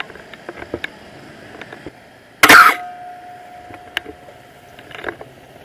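A single loud, sharp camera shutter click about two and a half seconds in, among light handling clicks.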